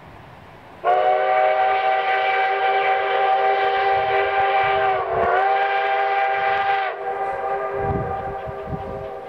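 Narrow-gauge steam locomotive's whistle blowing one long blast of several steady tones. It sags briefly in pitch about four seconds in, drops off about six seconds in and trails away more quietly.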